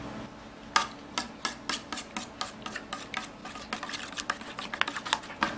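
Spoon beating raw eggs and chopped onion in a stainless steel bowl: a fast run of metal clinks and scrapes against the bowl, about four strokes a second, starting about a second in.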